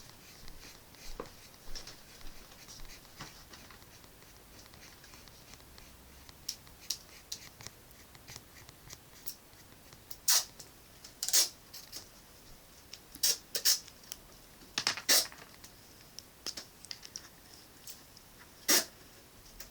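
Short, scratchy strokes of a drawing tool on paper, irregularly spaced. They are faint at first, then louder from about halfway through.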